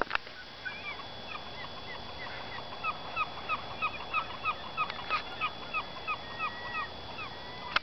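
Birds calling: a long run of short, hooked calls, repeating about three a second through the middle of the stretch and sparser near the start and end.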